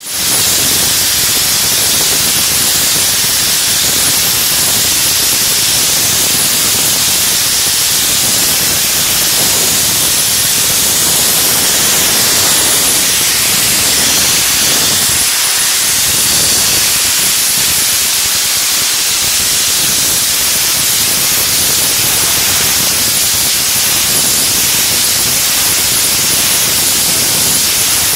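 Hand-held vapor blast nozzle spraying a jet of wet abrasive and compressed air onto a round metal tabletop: a loud, steady, high hiss.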